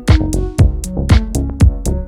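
Electronic dance music with a steady drum-machine kick about twice a second, a stepping bass line and higher synth notes.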